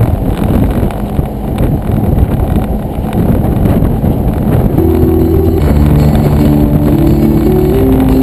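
Road and engine noise inside the cab of a 2007 Jeep Wrangler JK on the move. About five seconds in, music starts playing over the Jeep's stereo speakers.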